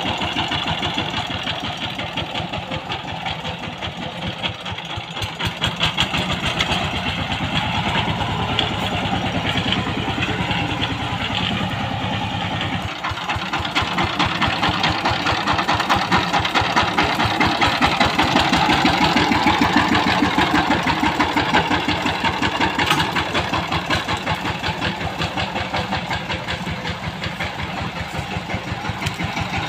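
Single-cylinder diesel engine of a two-wheel power tiller running under way with a rapid, even firing beat. It dips briefly about halfway through, then runs louder for a few seconds.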